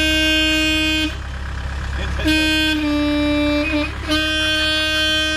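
A horn sounding three long, steady blasts, the middle one slightly lower in pitch, over a steady low rumble.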